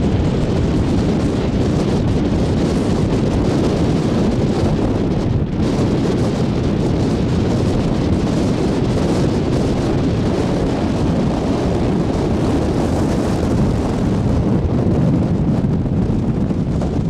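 Strong wind buffeting the camcorder's microphone: a loud, steady rumble that briefly eases about five and a half seconds in.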